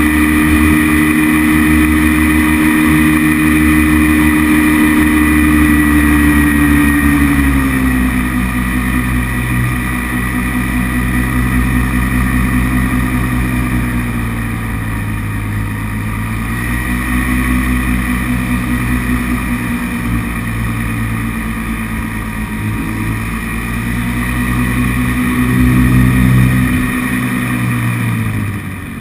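Paramotor engine and propeller running close to the microphone. The note is steady at first and falls about seven seconds in. It rises and falls twice more, then drops and gets quieter near the end as the throttle comes back.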